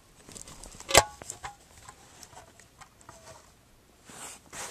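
Handling noise from a camera being set on a stand: one sharp click about a second in, then a few faint ticks and rustles.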